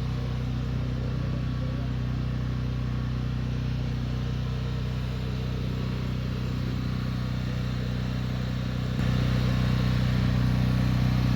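An engine running steadily with a low, even hum that gets louder about nine seconds in.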